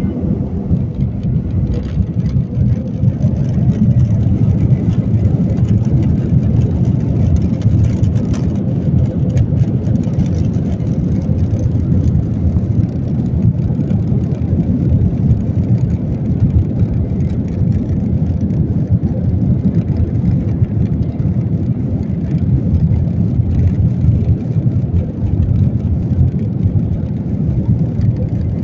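Jet airliner on takeoff: a steady, loud, low rumble of engines and rushing air with no distinct engine tone, growing a little over the first few seconds and then holding.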